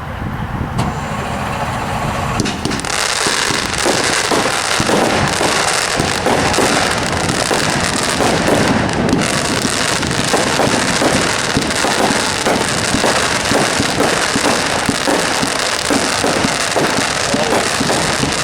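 500-gram consumer fireworks cake firing: a dense, rapid barrage of shots and crackle that thickens about two and a half seconds in and keeps going.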